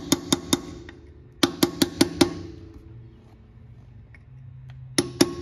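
Ball-peen hammer tapping a grease cap into a Triumph TR3 wheel hub, metal on metal. The strikes come in quick runs of about five a second, each with a short ring: three at the start, a run of five about a second and a half in, and a few more near the end.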